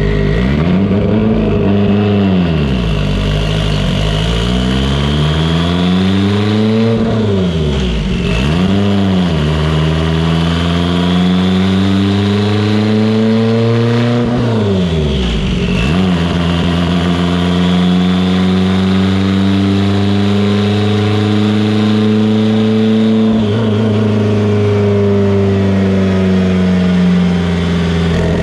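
Turbocharged Mitsubishi Evo 8's built 2.0 L four-cylinder engine running on a dyno. It revs up and down in quick swoops for the first several seconds, then makes long, slowly rising runs, with a sudden drop in revs about halfway through and a slow fall near the end.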